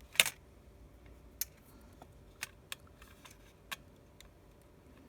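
Small, sharp clicks of a precision screwdriver and small tools working on the loudspeaker screws inside an iPhone 6s, about seven at irregular spacing, the loudest a quarter second in.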